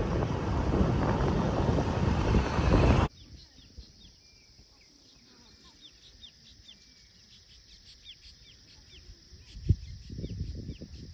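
Rushing water of a waterfall, loud and even, stopping abruptly about three seconds in. Then a quiet background of birds giving many short, high chirps, with a single thump near the end followed by low, uneven noise.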